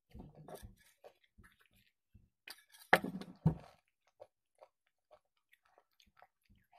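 Close-miked chewing of puri (deep-fried Indian bread): irregular short mouth clicks and smacks, with a cluster in the first second and a louder burst of mouth noise about three seconds in.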